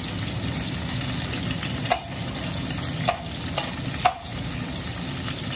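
Garlic frying in about three tablespoons of hot oil in a steel pan, a steady sizzle, with a few sharp clicks about two, three and four seconds in.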